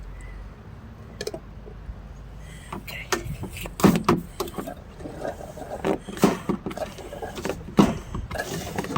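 Irregular knocks and clatter of gear being handled: a few light clicks early on, then from about three seconds in a run of sharp knocks, several a second.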